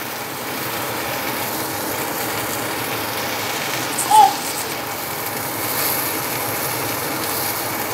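Chicken steaks frying in oil in a non-stick pan on an induction cooktop, a steady sizzle. A short beep-like tone comes about four seconds in.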